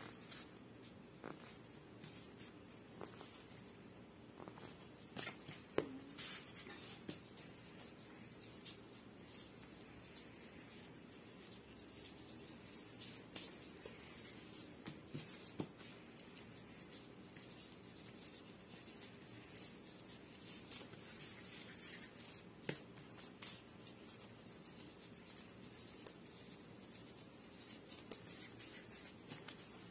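Faint taps, scrapes and rustles of plastic-gloved hands cutting, dividing and rounding soft bread dough on a silicone baking mat with a plastic bench scraper. A sharper click stands out about six seconds in.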